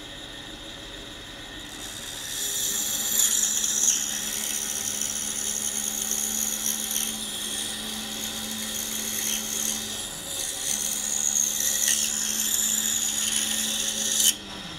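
Pegas bandsaw/scroll saw with a number 9 blade running steadily, then cutting through a small block of buckeye from about two seconds in: a high, noisy cutting sound that stops suddenly near the end as the cut is finished.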